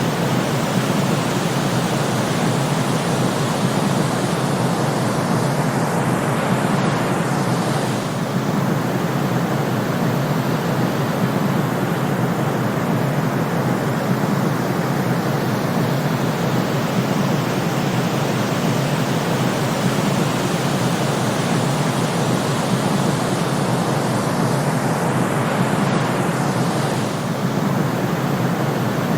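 Steady white-noise sleep track, a constant rushing hiss heavier in the low range. A faint swooshing sweep passes through it twice.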